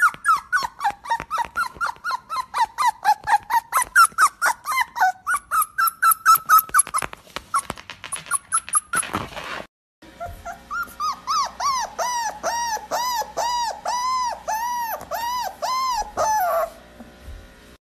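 Small dog giving rapid high-pitched yips, about five a second. After a short break it gives a run of rising-and-falling whining calls, about two a second.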